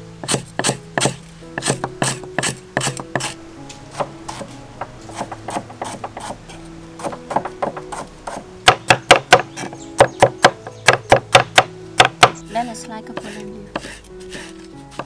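A cleaver chopping fresh herbs and vegetables on a thick round wooden chopping block: quick runs of sharp knife knocks, fastest and loudest in the second half. Background music plays underneath.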